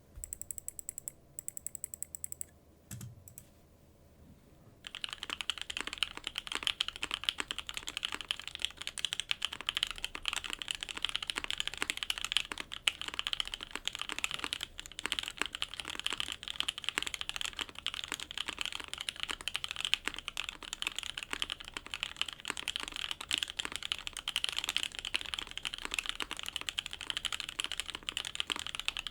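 Typing on a JJW Cloudline custom mechanical keyboard with lubed OP Black linear switches, a polypropylene plate on an O-ring mount and GMK keycaps. A few scattered keystrokes come first, then fast continuous typing starts about five seconds in.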